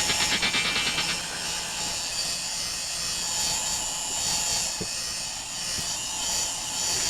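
Electric heat gun running, a steady blowing hiss of its fan with a faint hum, wavering slightly in level, as it blows hot air to soften old hide glue.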